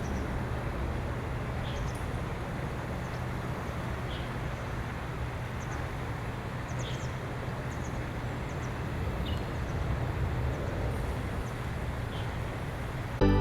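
Steady outdoor background noise, a low hum under an even hiss, with faint short high-pitched bird chirps every second or two. Music starts suddenly at the very end.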